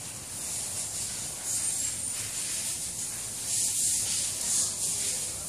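Leaves of a butterfly pea vine rustling as a beagle noses and feeds in it: a high hiss that swells twice.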